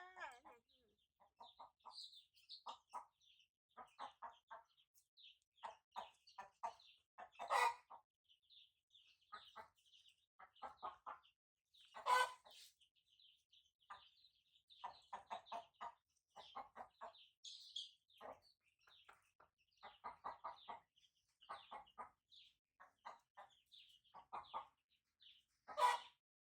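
Chickens clucking in short quick runs over steady high peeping from chicks. Three louder, harsher cries stand out: about 8 seconds in, 12 seconds in, and near the end.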